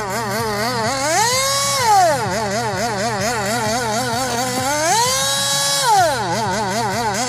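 Electronic siren cycling between a wail that rises, holds and falls and a fast warble of about four rises and falls a second, the cycle repeating twice, over a steady low hum.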